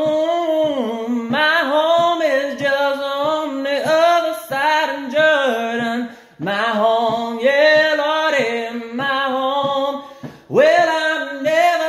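A man singing a gospel hymn unaccompanied, in long held and sliding notes, with short breaths between phrases about six and ten seconds in.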